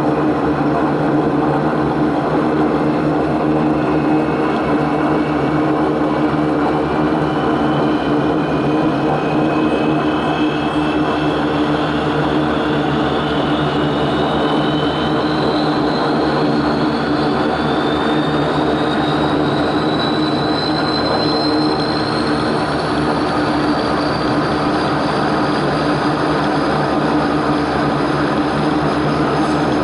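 Antonov An-24's twin Ivchenko AI-24 turboprop engines running with a steady propeller drone, loud throughout, while a thin turbine whine climbs slowly in pitch.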